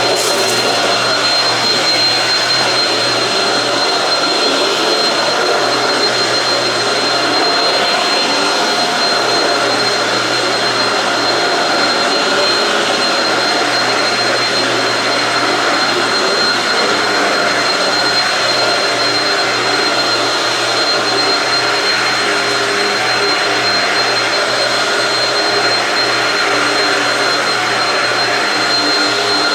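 Shark Rocket stick vacuum with DuoClean, corded, running steadily on carpet: a constant rush of air with a thin, steady high whine over it.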